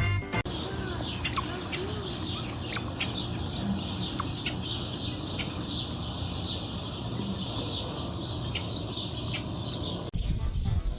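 Many small birds chirping together in a dense, continuous chatter over a steady low background noise. It cuts off abruptly about ten seconds in.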